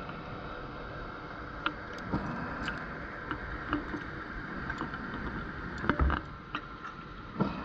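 Underwater sound picked up by a camera in its housing: a steady hiss with scattered light clicks, and two louder rushes, one about two-thirds of the way through and one near the end.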